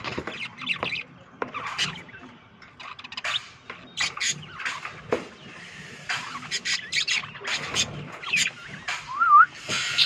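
A flock of budgerigars chattering, with many overlapping short chirps, squawks and warbles. A clear warbling whistle comes near the end.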